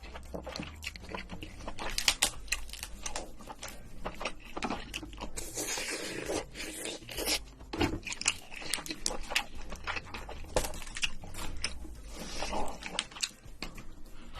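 Crab being eaten close to the microphone: a rapid, irregular run of crunches and cracks of shell, with chewing.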